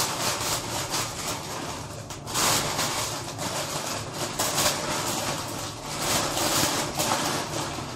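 Plastic bag crinkling and rustling as soaked yellow noodles are shaken out of it into a cooking pot, with irregular crackles throughout.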